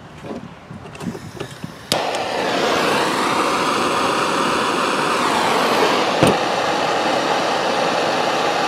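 A handheld gas torch's flame starts suddenly about two seconds in and then hisses steadily as it melts the freshly cut end of a lawn mower starter rope to seal it. Light handling clicks come before it, and there is one sharp click partway through.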